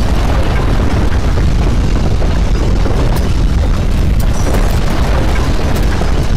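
Continuous loud, deep rumbling roar of a simulated earthquake, with a few faint crackles about halfway through.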